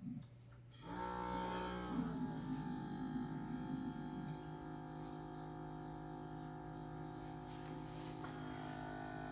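Steady whirring drone of several held tones from the Dräger Fabius GS anaesthesia machine's piston ventilator while it runs its automatic leak and compliance test. The drone starts about a second in, steps in pitch at about two and four seconds, then holds steady.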